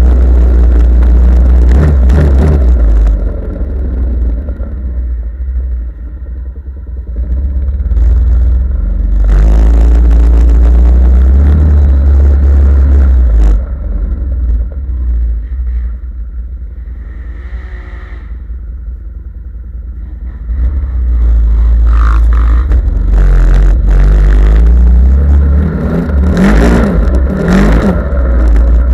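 Off-road vehicle engine revving hard in the mud, its pitch rising and falling over a heavy low rumble. It is loud, easing off twice for a few seconds in the middle before coming back up.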